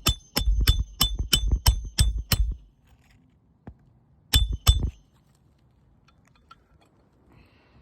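Hammer driving a roofing nail into an asphalt shingle, the steel head ringing on each blow: a quick run of about seven strikes, then two more about two seconds later.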